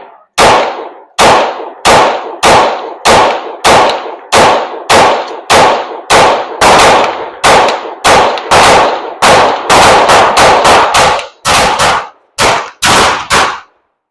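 Rapid semi-automatic gunfire: a string of about two dozen loud shots at roughly two a second, coming faster for a stretch about ten seconds in, then stopping just before the end.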